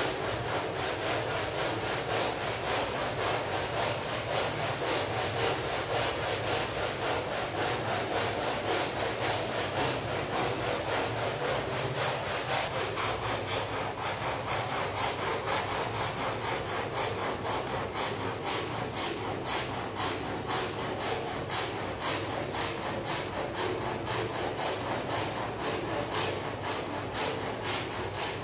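A stiff brush scrubbing a rug during washing, in quick, even back-and-forth strokes, several a second, without a break.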